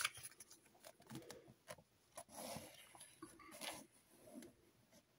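Faint rustling of a paper instruction booklet being handled and its pages turned: a few short, scattered rustles and light ticks.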